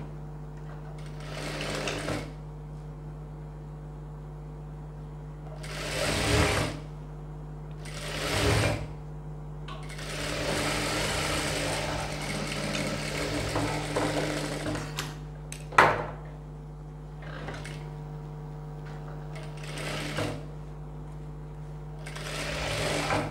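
Electric single-needle sewing machine stitching the facing onto a blouse's neckline in several short runs, with one longer run of about five seconds near the middle and a steady motor hum in between. There is a sharp click about 16 seconds in.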